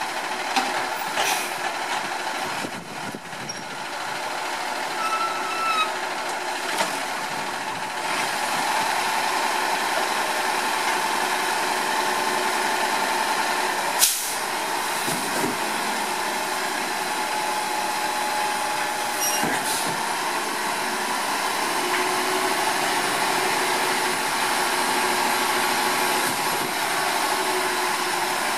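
Diesel engine of a 2008 Autocar WXLL garbage truck running with a steady whine while the Labrie Automizer's automated arm lifts a cart over the hopper; the engine gets louder about eight seconds in. A single sharp bang comes about halfway through.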